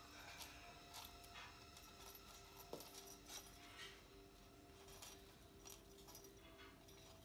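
Faint, scattered clicks and light jingling of a small toy ball as a kitten bats it about on a laminate floor, over a faint steady hum.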